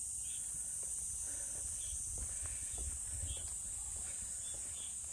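Cicadas droning in one steady high-pitched note, with faint footsteps on a paved road underneath.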